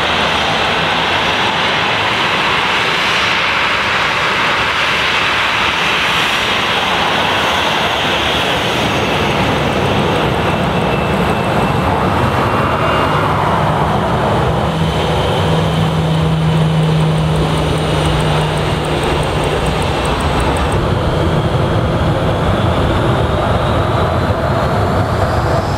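Jet engines of a taxiing Boeing 737 airliner running steadily: a loud, even rushing noise with a faint high whine, and a low hum that swells in the middle.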